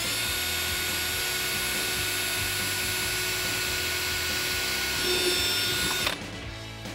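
Milwaukee cordless drill spinning a small bit into the center of a plastic push rivet to drill it out, a steady whine that gets a little louder about five seconds in and stops abruptly about a second later.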